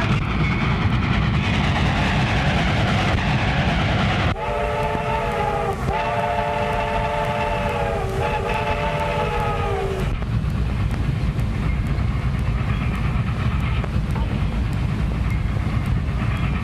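A railway train running with a steady rumble and clatter; about four seconds in, its whistle sounds a chord of several notes in three blasts one after another, the last sagging in pitch as it ends.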